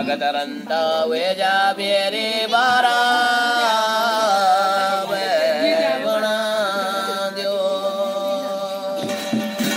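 A man singing a devotional chant solo, holding long notes and sliding between them.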